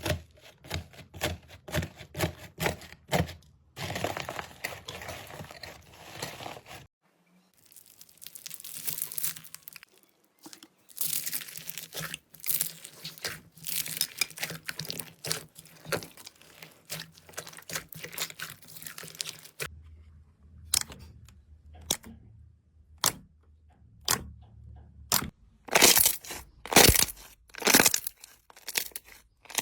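Slime being squeezed, poked and pressed by hand, giving runs of sticky crackling, popping and crunching sounds. The texture changes abruptly about 7 seconds and 20 seconds in, and a few sharp, loud crunches come near the end.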